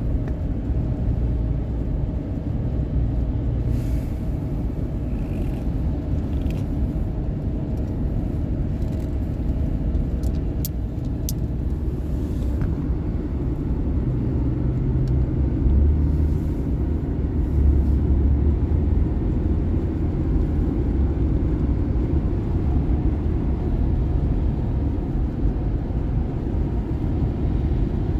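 Car driving on a highway: a steady low rumble of road and engine noise, a little louder in the second half. A few faint clicks about ten seconds in.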